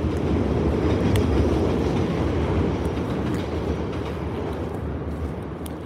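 Steady low rumble, strongest a second or two in and slowly fading toward the end, with a few faint clicks over it.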